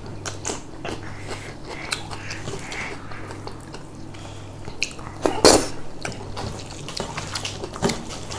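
Spoons and fingers clinking and scraping on plates during a meal: small scattered clicks, with one louder clatter about five seconds in, over a steady low hum.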